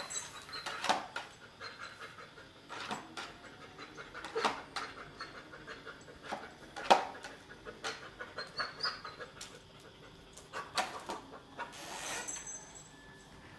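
A dog panting and huffing in short, irregular bursts, the sharpest about seven seconds in.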